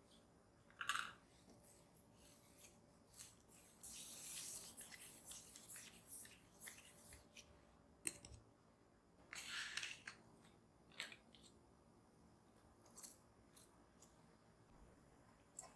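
Soft scuffs and rubbing of hands working a ball of bread dough on a marble countertop as it is rounded, in short irregular strokes, with one sharp tap about eight seconds in.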